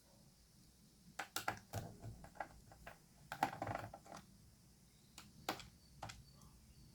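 Light, irregular clicks and taps of a Dell Latitude E6430 laptop's plastic casing being handled with a small screwdriver during disassembly, bunched into a few short clusters.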